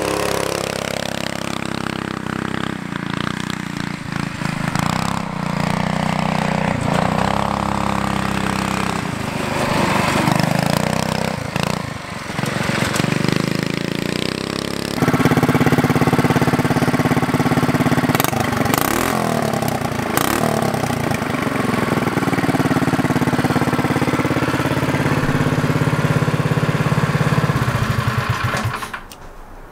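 Predator 212 single-cylinder go kart engine running under load as the kart is driven, its pitch rising and falling with the throttle. It gets louder and closer about halfway through and cuts off shortly before the end.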